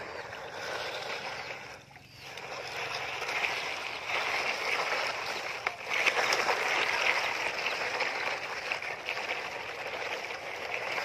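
Water swishing and churning as toy dump trucks drive through shallow muddy water, a steady hiss that dips briefly about two seconds in.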